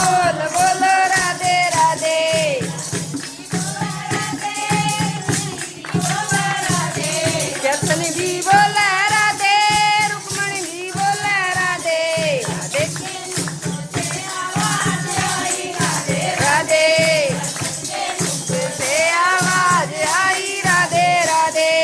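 A Haryanvi bhajan: a high singing voice carrying a devotional melody over a steady drum beat and jingling percussion.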